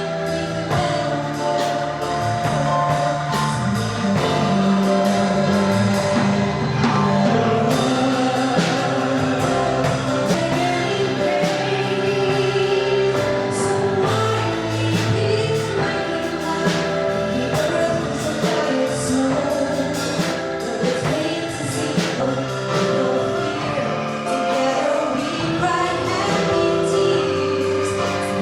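Angklung ensemble playing a song: shaken bamboo tubes sounding held chords that change every second or so, with singing.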